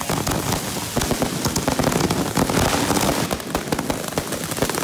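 Consumer fireworks going off at close range: a dense, continuous run of rapid crackling pops and bangs, louder from about a second in.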